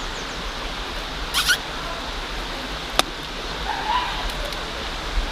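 Steady rush of a waterfall and river, with a brief high squeak about a second and a half in and a single sharp click near the middle.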